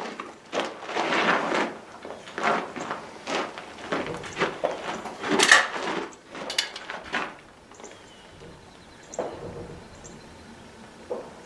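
Knocks and clicks of a Hatfield .410 single-shot break-open shotgun being handled between shots: the action broken open, the shell changed and the gun closed. A run of sharp knocks fills the first seven seconds or so, followed by a few faint clicks.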